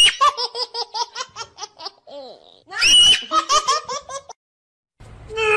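High-pitched giggling laughter in two runs of quick, even 'ha-ha' pulses, with a short pause between them.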